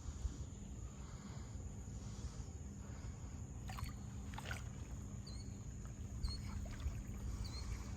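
Outdoor waterside ambience: a steady low rumble, with two soft clicks about halfway through and a few short, faint high chirps in the second half.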